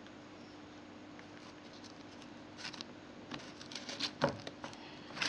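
Small clicks and scratchy handling noises as a USB charging cable is plugged into a smartphone, starting about halfway in, with the sharpest clicks a little before the end, over a faint steady hum.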